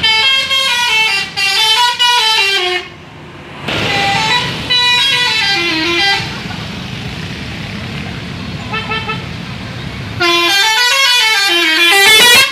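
Indonesian bus 'telolet' horn playing its multi-note tune in three long bursts, the notes stepping down and back up in pitch, with a faint short snatch of the tune about nine seconds in. A steady rumble fills the gaps between the bursts.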